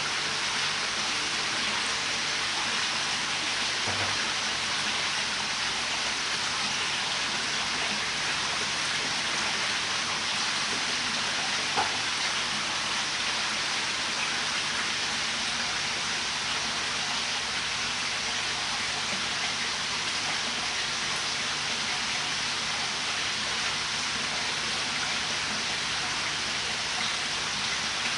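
Steady, even hiss of splashing water, with a single short click about twelve seconds in.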